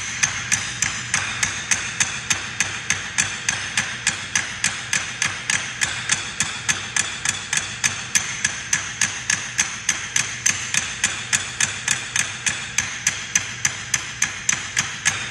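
Drumsticks striking folding chairs in unison, a steady, even run of single strokes at about three a second: an eight-strokes-per-hand snare drum warm-up.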